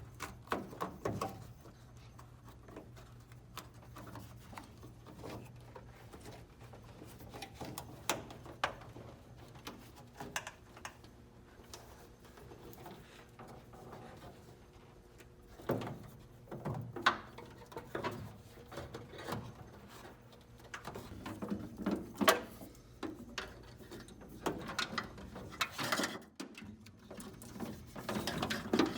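Handling noise from a car wiring harness being routed and clipped into place: scattered light clicks, knocks and rustles of wires and plastic retaining tabs, with louder clicks in the second half, over a faint steady hum.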